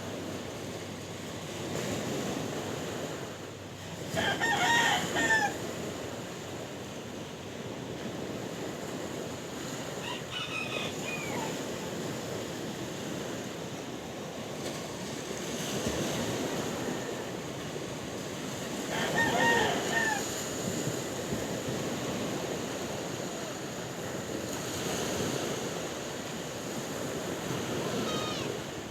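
A rooster crowing four times over the steady wash of sea waves, loudest a few seconds in and about twenty seconds in, fainter in between and near the end.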